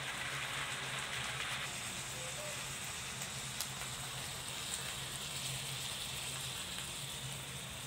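Pork and eggplant simmering in a shrimp-paste sauce in a frying pan: a steady sizzle with a few faint pops, over a low steady hum.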